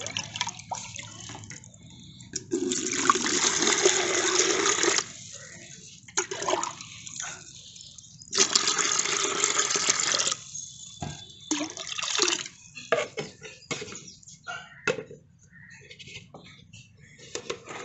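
Water scooped from a shallow tank with a plastic container and poured into a bucket, two pours of about two seconds each, with short splashes and sloshing as the container dips into the water between them.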